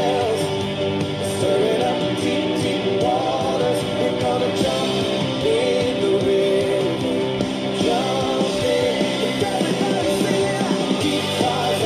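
Upbeat song: a sung melody over instrumental backing with a steady beat.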